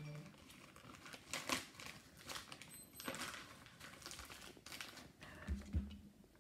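Clear plastic bag crinkling and rustling in scattered short crackles as hands work it open and pull sausage patties out.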